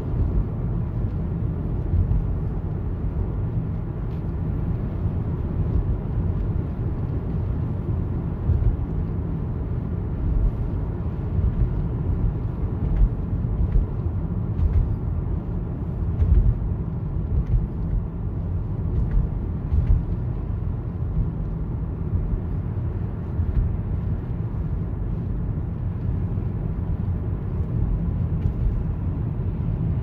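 Steady low rumble of a car's engine and tyres on a snow-covered highway, heard from inside the cabin.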